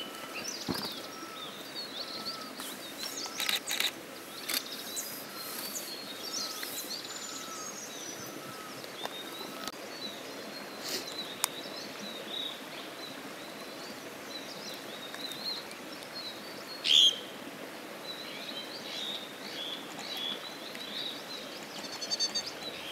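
Wild birds calling and chirping over a steady background hiss. A low note repeats about every second through the first third, and one loud, sharp call comes about two-thirds of the way through.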